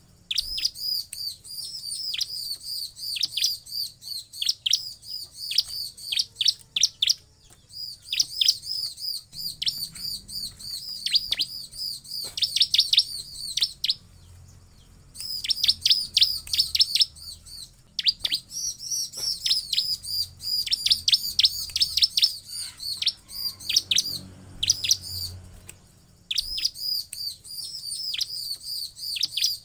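Bar-winged prinia (ciblek) singing: rapid, high, repeated chirping notes in phrases of several seconds, broken by short pauses, with sharp down-slurred notes mixed in.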